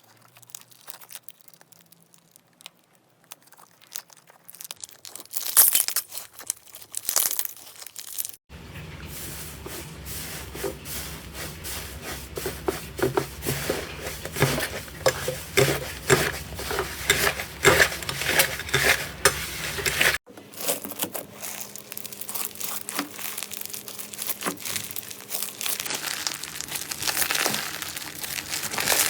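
Hands squeezing and pressing slime, with dense crackling and popping clicks. The sound is quiet for the first few seconds and is busiest in the middle.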